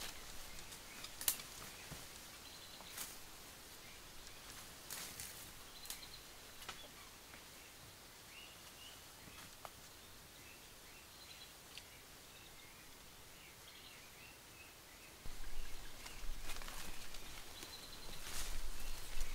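Bamboo-forest ambience with faint, short bird chirps and a few sharp clicks. About 15 seconds in, louder rustling and crunching of dry bamboo leaves begins, made by someone moving through the leaf litter close by.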